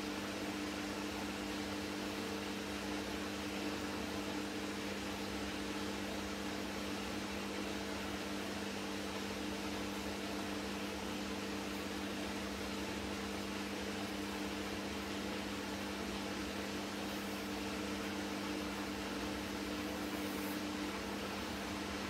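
Hoover H Wash 300 Plus front-loading washing machine turning its drum at tumble speed, the wet load sloshing in water over a steady motor hum made of several even tones. One of the tones drops out near the end.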